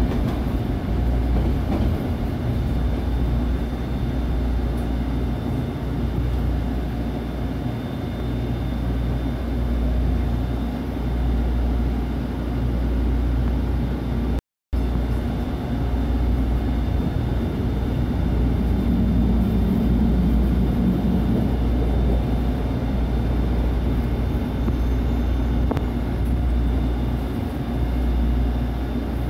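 SEPTA Route 101 trolley, a Kawasaki light rail car, heard from inside as it runs along the track: a steady rumble of wheels and running gear with a faint steady whine over it. The sound drops out for a moment about halfway through.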